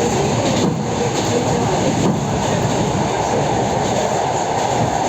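Suburban electric multiple-unit train running along the line: a steady rumble of wheels on the rails, heard from inside the carriage.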